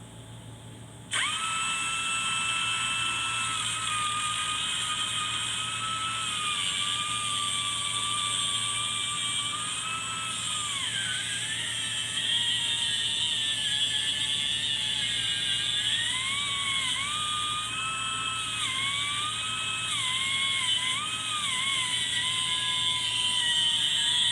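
Angle grinder switching on about a second in and running with a high motor whine over a hiss. Its pitch sags and wavers several times, as it does when the disc is pressed into work.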